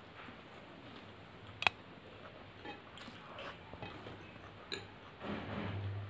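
Close-up chewing and wet mouth noises of a person eating rice and curry, with a few sharp clicks; the loudest click comes about one and a half seconds in, and the mouth noise grows louder near the end.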